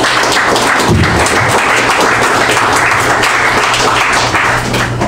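Audience applauding, a dense spell of clapping that dies away near the end.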